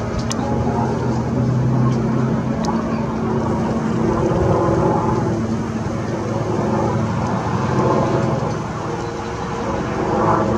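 Military helicopter circling low overhead: a steady rotor and engine drone, easing off slightly about nine seconds in, then building again.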